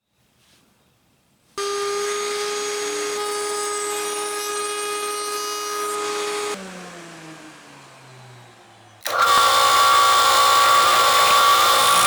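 A high-speed electric power tool runs at a steady whine for about five seconds, is switched off and winds down with falling pitch, then starts again about nine seconds in, louder and with more hiss.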